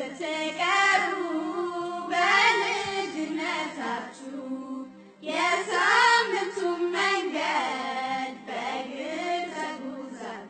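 Solo singing in long, wavering melodic phrases over a steady low hum, with a short break about five seconds in.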